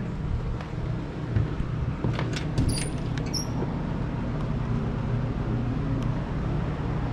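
Steady low outdoor hum, with a few light clicks and short high chirps about two to three seconds in.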